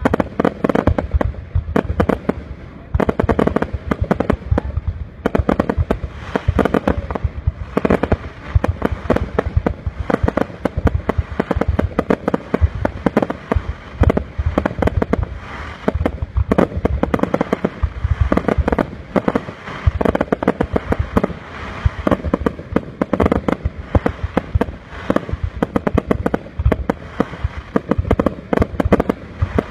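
Aerial fireworks display: a continuous, rapid barrage of shell bursts and crackling bangs, many a second, with no pause.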